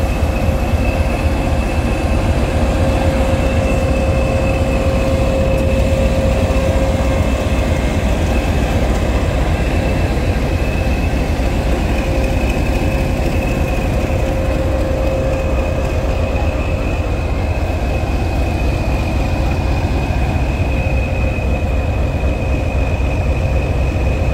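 British Rail Class 20 diesel locomotive's English Electric engine running at idle, loud and steady: a deep engine note with a steady mid-pitched hum and a high-pitched whistle held over it.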